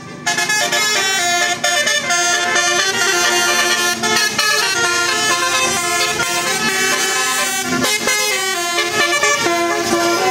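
Telolet horns of Tunggal Jaya buses playing a duet, the multi-trumpet air horns sounding a tune in quick stepped notes, loud and continuous.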